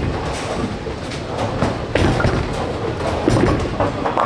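Bowling-alley lane noise: the low rumble of bowling balls rolling down the lanes, with scattered knocks of balls and pins.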